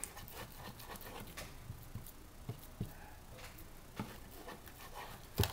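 Hands pressing and smoothing raw ground turkey in a metal baking pan: faint soft squelches and light taps, with a sharper click near the end.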